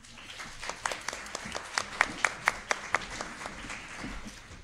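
Audience applauding, with a few louder claps close by in the middle, dying away near the end.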